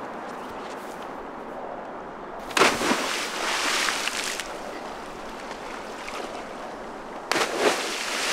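A body hitting river water feet-first from a rock jump: one sudden loud splash about two and a half seconds in, its spray hissing away over about two seconds, and another splash near the end.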